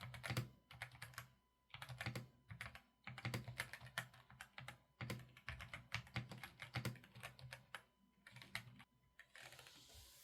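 Typing on a YINDIAO Y95 mechanical keyboard with tactile Outemu Brown switches: quick runs of key clicks broken by short pauses. A short hiss comes near the end.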